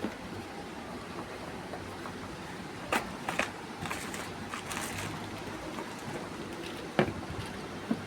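A few sharp clicks and brief rustles, about three seconds in and again near seven seconds, over a steady background hiss.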